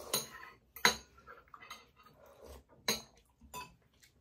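Metal spoon and chopsticks clinking and scraping against bowls, a plate and plastic food containers while eating, in scattered sharp clicks, the loudest about a second in, with some chewing between them.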